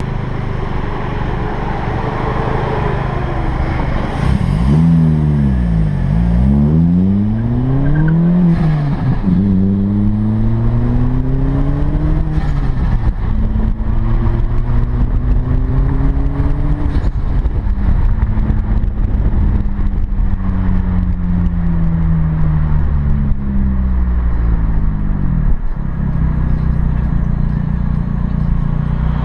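Turbocharged Peugeot 206 1.6 16v four-cylinder engine revved repeatedly: two quick rev blips about four and eight seconds in, then a longer climb and a slow fall in revs. When the throttle snaps shut, the HKS SSQV II blow-off valve, adjusted closed, gives a short hiss and turbo flutter.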